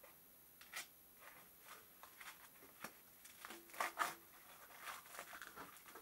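Thin foam packing sheet rustling and crinkling as it is peeled off by hand, in short scattered bursts, loudest about four seconds in.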